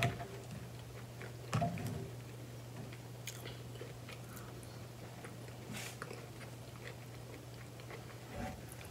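Close-miked chewing and mouth sounds of a person eating a mashed potato bowl with fried chicken, with a few short sharp clicks, likely from the fork, over a steady low hum.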